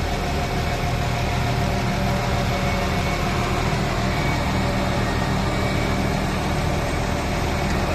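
Self-propelled forage harvester and John Deere tractor running steadily together while chopping maize into a trailer alongside, a continuous engine drone with a steady higher hum over it.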